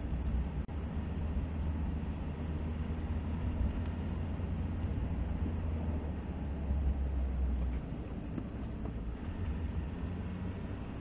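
Steady low engine and tyre rumble of a car driving slowly, heard from inside the cabin. It eases a little about eight seconds in as the car slows.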